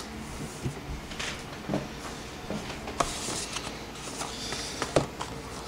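Packaging being handled: scattered light clicks and rustles, a few sharper taps among them.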